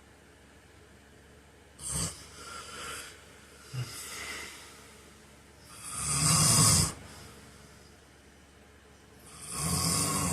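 A man snoring in his sleep: a sharp snort about two seconds in, softer rasping breaths after it, then two loud snores, the loudest about six seconds in and another near the end.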